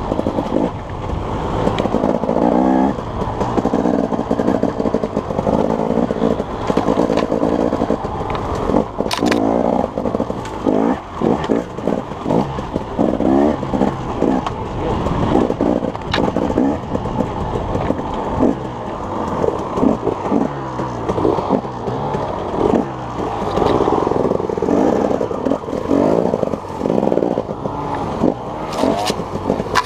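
An engine running continuously, its pitch rising and falling as it speeds up and slows down, with a few sharp clicks.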